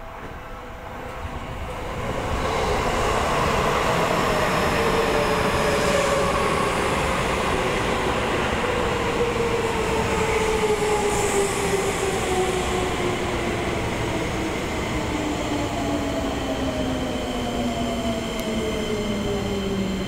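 Seibu 20000-series electric train pulling into the station and slowing: the inverter-driven traction motors' whine falls steadily in pitch, over the rumble of the wheels on the rails. It grows louder over the first few seconds as the train draws near.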